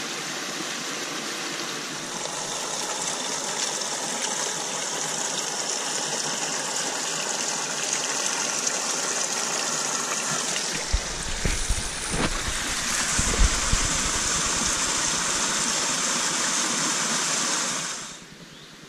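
Small rocky stream running, a steady rush of water. A few low knocks and splashes come in the middle, and the water sound cuts off sharply near the end.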